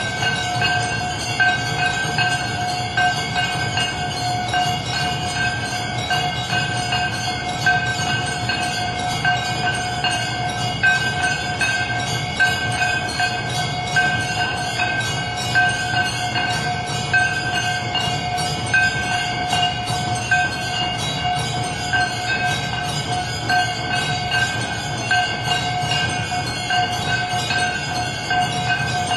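Temple bells ringing quickly and without a break over a steady held tone, with a low rumble underneath.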